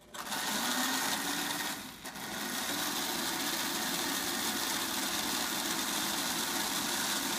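O gauge model steam locomotive running on the track: a steady motor whir and wheel hum that starts abruptly, drops briefly about two seconds in, then runs on evenly.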